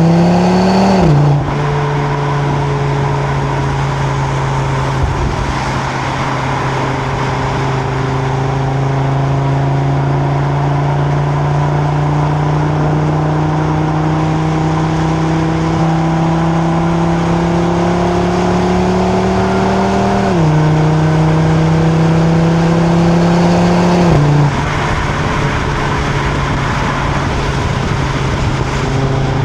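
2025 Audi RS3's turbocharged five-cylinder engine through its stock exhaust, heard at the tailpipes, pulling under light throttle with the pitch slowly climbing. It upshifts three times, with the pitch dropping suddenly: about a second in, about twenty seconds in, and again about four seconds later. After the last shift it settles into a steady cruise.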